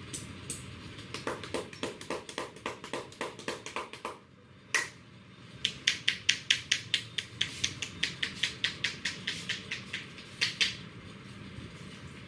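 Rapid hand tapping of an Indian head massage: quick sharp pats, about five a second, in two runs with a short break about four seconds in, stopping shortly before the end.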